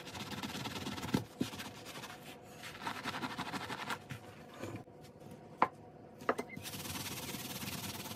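Soapy sponge scrubbed rapidly back and forth over a fencing mask's fabric strap laid flat on a benchtop: a dense, scratchy rubbing that eases off for a couple of seconds in the middle, with a few sharp knocks, the loudest just past the middle.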